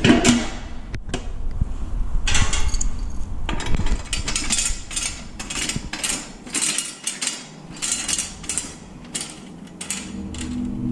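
Metal clicks and rattles from a coin-operated candy vending machine being handled and worked on: a longer rattling stretch about two seconds in, then a run of irregular sharp clicks and clacks.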